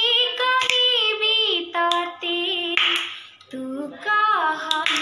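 A girl singing a song solo, holding long, slightly wavering notes, with a few sharp hand claps between phrases.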